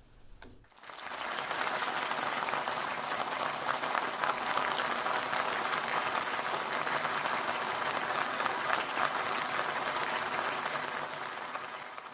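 Applause from a large audience: many hands clapping together, starting about a second in, holding steady, then easing off at the end.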